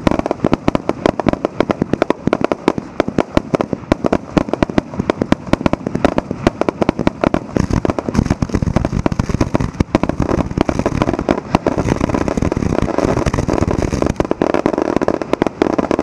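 Fireworks finale fired at close range: aerial shells launching in a rapid, unbroken barrage, many sharp reports each second.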